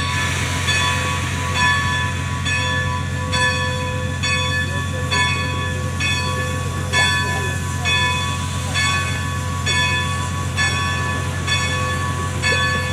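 Locomotive standing at the engine house: a steady low rumble with several held ringing tones over it and a metallic beat repeating a little more than once a second.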